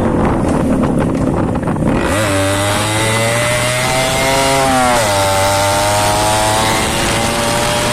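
Yamaha RX 100's two-stroke single-cylinder engine running under throttle. Its buzzing note climbs slowly, drops sharply about five seconds in, then holds steady.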